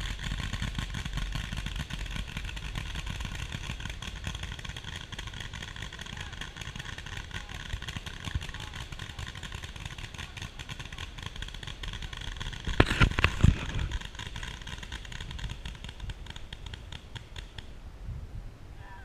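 Many paintball markers firing at once, a fast continuous crackle of pops, with a louder burst of close shots about thirteen seconds in.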